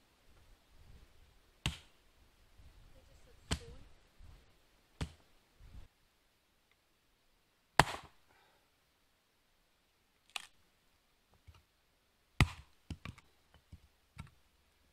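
Hatchet striking and splitting firewood: single sharp knocks of the blade into wood a second or two apart, the loudest about eight seconds in, then a quick run of lighter knocks near the end.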